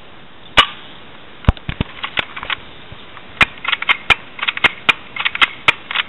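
Airsoft guns firing: a string of sharp, irregular snaps, a few scattered at first, then coming thick and fast in the second half.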